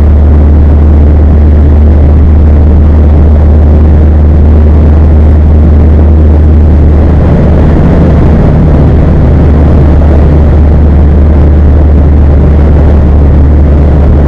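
2016 Mazda 3 GT's four-cylinder engine running steadily through twin Spintech Super Pro Street 9000 mufflers, giving a deep exhaust rumble with heavy wind noise on the microphone. The tone shifts slightly about halfway through.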